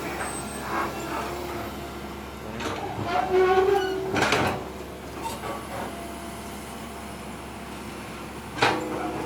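Excavator diesel engine running steadily, with a cluster of metal clanks and squeals from the machine working about three to four seconds in, and one more sharp clank near the end.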